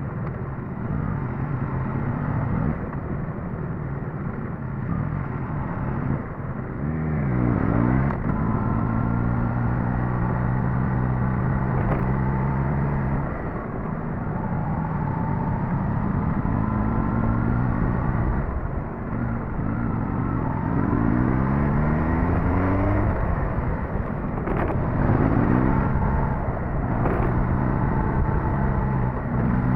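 Suzuki GSX-S1000GT's inline-four engine running under way, with road and wind noise. The engine note swings up and down in pitch several times, about seven seconds in and again around twenty-one and twenty-five seconds, as the revs change.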